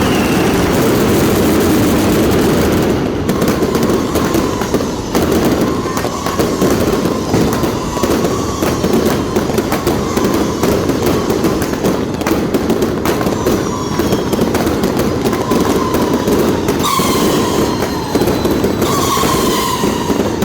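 Fireworks going off without a break: dense, rapid crackling bangs over a steady rumble, with several whistling streaks near the end.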